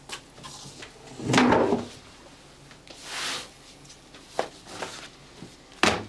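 Handling noises in a small room: a loud scrape about a second in, a soft hiss a little later, and two sharp knocks near the end.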